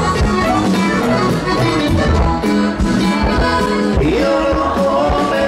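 Live norteño band music: accordion carrying the melody over bass and a steady drum beat.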